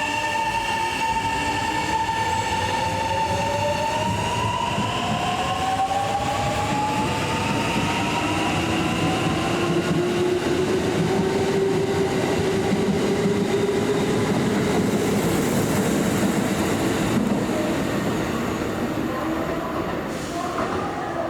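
Kintetsu electric train accelerating away, its traction motors whining in several tones that rise steadily in pitch over the first dozen seconds, over continuous wheel and running noise.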